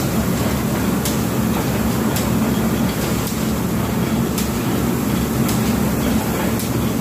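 Oil mill machinery running steadily with a low hum, with a sharp click repeating about once a second.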